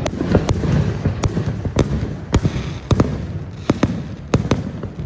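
Fireworks going off: a quick run of sharp bangs, about two a second, over a continuous low rumble.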